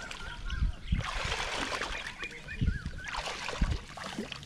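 Hands splashing and sloshing in shallow, weedy pond water while groping for fish, in two main bouts with a few dull low thumps.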